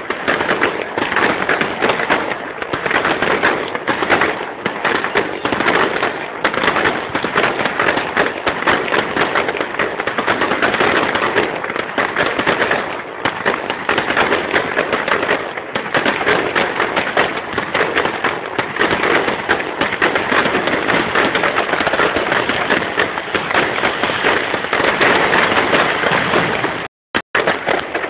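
Fireworks display: a dense, continuous barrage of bangs and crackles with no let-up. Near the end the sound cuts out twice for a moment.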